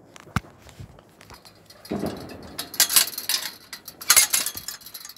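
A sharp click, then clinking and rattling that comes in two dense bursts about three and four seconds in.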